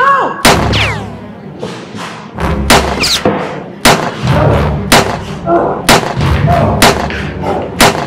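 A string of sharp, gunshot-like shots from a toy sniper blaster fired at a target, about eight of them at roughly one a second, the first followed by a falling whistle.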